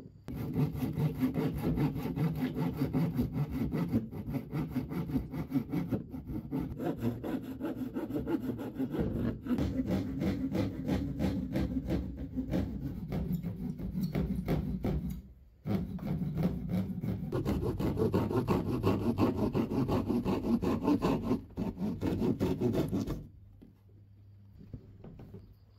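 Hand saw cutting through a plywood sheet in steady back-and-forth strokes. It pauses briefly a little past halfway and stops near the end.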